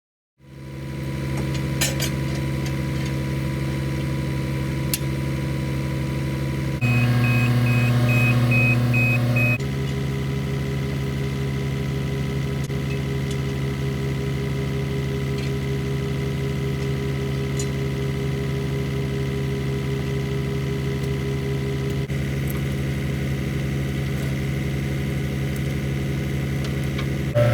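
Excavator diesel engine running steadily. About seven seconds in it grows louder and changes pitch for two or three seconds, with a string of short high beeps, then settles back to its steady running.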